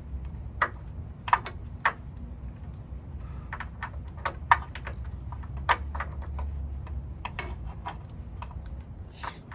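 Hammer blows knocking at the pins of a car's lower control arm: about twenty sharp, irregularly spaced strikes, the loudest about four and a half seconds in. The pins are seized and don't come free.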